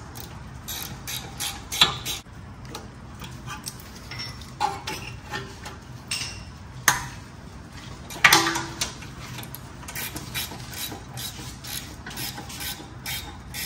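A 13 mm wrench and locking pliers working on a rear brake caliper's pin bolts as they are tightened, with irregular metallic clicks and clinks and a few sharper clanks, the loudest about two seconds in and about eight seconds in.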